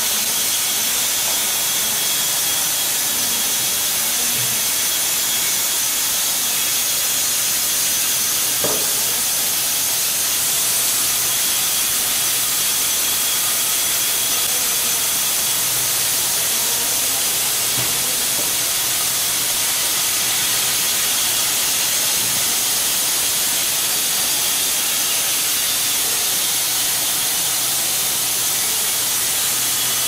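Horizontal band sawmill running, its blade cutting through a log with a steady high hiss over a low motor hum. A single sharp click comes about nine seconds in.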